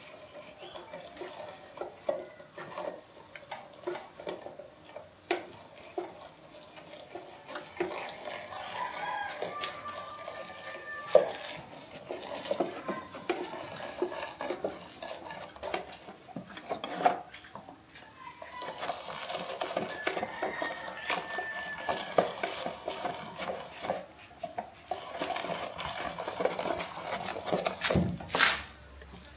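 Cooking utensils clinking, knocking and scraping against pots and pans in irregular strokes, with one louder clatter near the end.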